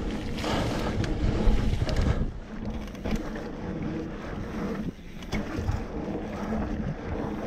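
Mountain bike rolling along a dirt trail: wind rushing over the microphone and tyre noise, with several sharp knocks as the bike goes over bumps.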